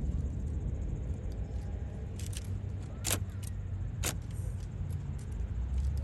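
Fireworks display between bursts: a low lingering rumble with three sharp cracks, about two, three and four seconds in, the one near three seconds the loudest.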